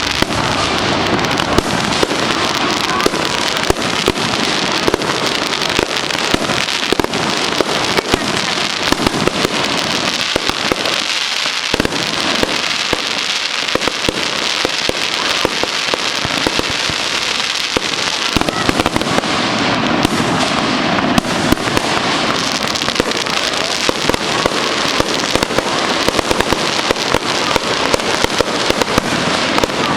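Fireworks display: a dense, unbroken run of crackling and popping bursts.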